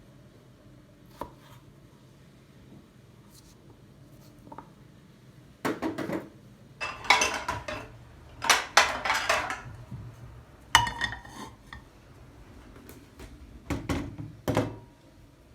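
Dishes and cutlery being handled, clinking and clattering in several bunched bursts after a quiet start, with two last clinks near the end.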